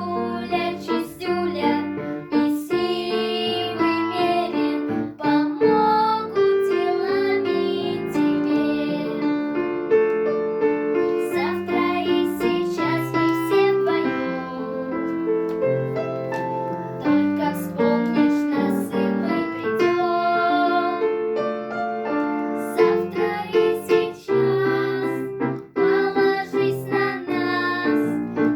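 Music: a pop-style children's song with piano and keyboard accompaniment over a steady beat.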